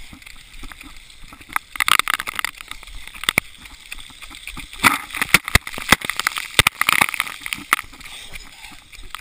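Water spraying and splashing onto a GoPro's waterproof housing, in several louder gusts full of sharp crackling hits of droplets.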